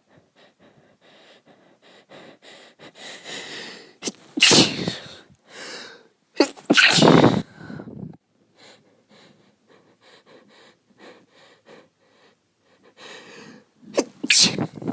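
A woman sneezing from the persistent nasal tickle of a cold. Quick, shaky catching breaths build up to a loud sneeze about four seconds in, a longer second sneeze follows shortly after, then more breathy build-up and a third sneeze near the end.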